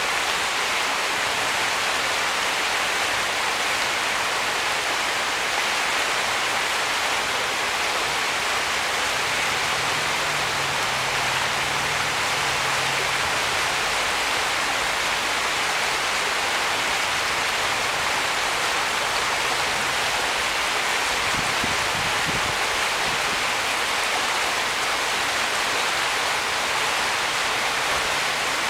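Small rapids in a stream: water rushing and splashing over rocks in a steady, unbroken hiss.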